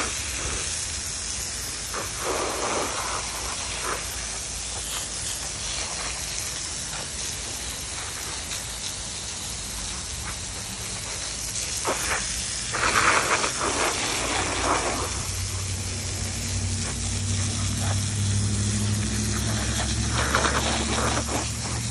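Pressure washer jet spraying wet wood slabs, a steady hiss with louder rushing surges as the spray moves across them, a couple of seconds in, around the middle and near the end. A low steady hum joins about two-thirds of the way through.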